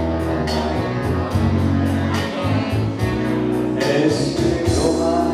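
Live band music with guitar, bass and a steady ticking cymbal beat; a man's singing voice comes in about four seconds in.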